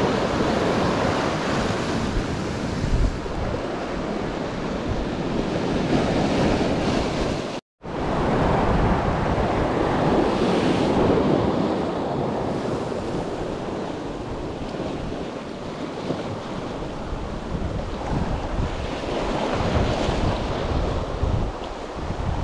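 Sea waves breaking and washing over a rocky shoreline, surging and easing, with wind buffeting the microphone. The sound cuts out completely for a moment about eight seconds in.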